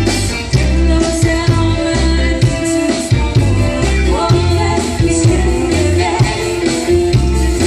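A live dance band playing an upbeat song with a steady bass-and-drum beat and a singing voice over it.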